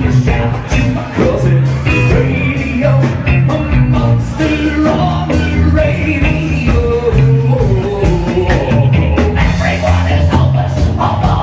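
A live rock band playing, with a steady drum beat and a strong bass line under a wandering melody line.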